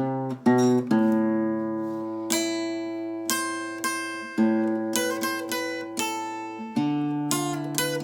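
Guitar playing an enka melody: notes and chords plucked and left to ring, a new one struck roughly every second.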